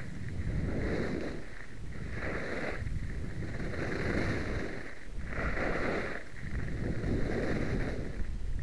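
Skis sliding and scraping over a groomed piste through a series of turns, a swell of hissing noise about every second and a half. Wind rumbles on the microphone throughout.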